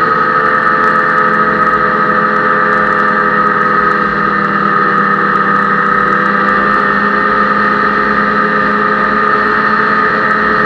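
Ski-Doo snowmobile engine running at a steady, even pitch while the sled cruises over snow, heard from the rider's seat.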